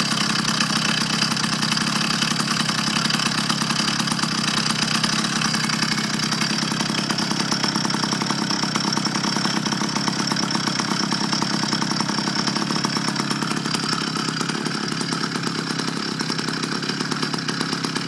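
Motorized bicycle's small kit engine idling steadily with rapid, even firing pulses, carrying a weird sound that the owner suspects comes from the clutch not fully engaging.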